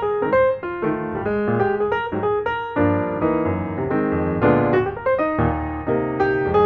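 Background instrumental music led by piano, a continuous stream of quick notes.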